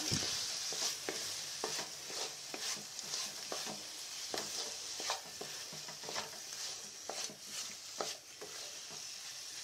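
Chopped apple being stirred through a hot sugar and coconut mixture in a non-stick pan, the utensil scraping the pan about every half second over a steady sizzle.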